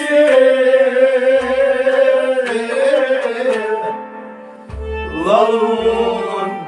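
A male voice sings long, wavering held notes of a Kashmiri Sufi devotional song over a steady harmonium drone, with bowed strings and plucked Kashmiri rabab alongside. The voice falls away around four seconds in and comes back on a rising note, with a few low thumps.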